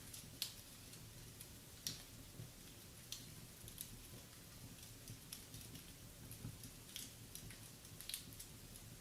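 Wood fire burning in a fireplace, faintly crackling with sharp, irregular pops and snaps every second or so.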